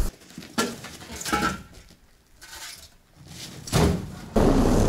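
Scattered light clanks and knocks from a small steel car trailer being handled and dragged for hitching, the loudest about three and three-quarter seconds in. Near the end a steady rushing noise sets in.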